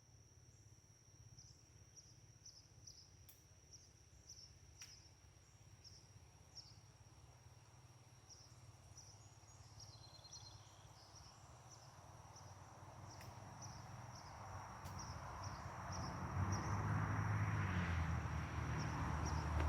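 Crickets or other insects chirping: a steady high trill with regular pulses on top. From about the middle a low rumble grows steadily louder and is loudest over the last few seconds.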